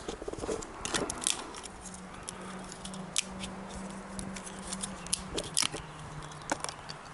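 Irregular sharp crackles and ticks from twigs and kindling in a brick rocket stove's firebox as the fire is being lit.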